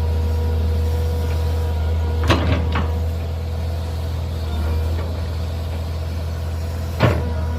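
Mini excavator engine running steadily, with a cluster of sharp knocks about two seconds in and another near the end.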